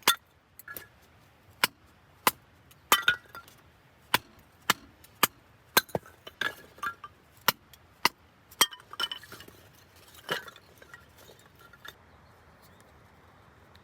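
Irregular sharp clinks and taps of small hard objects knocking together, about one or two a second, some with a brief ring, stopping near the end.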